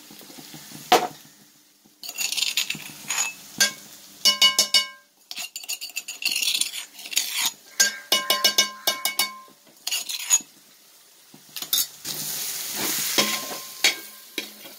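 Metal spoon stirring and scraping masala in a large metal pot, clinking against the pot in quick runs that leave short ringing notes. A sizzle of frying runs under it and grows louder near the end.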